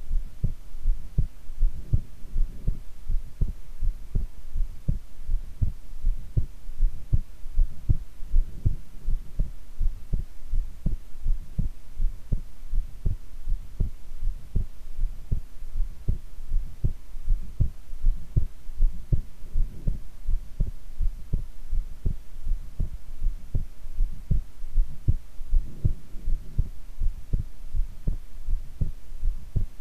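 A woman's heartbeat heard close up, a steady, even rhythm of low thumps over a faint steady hum.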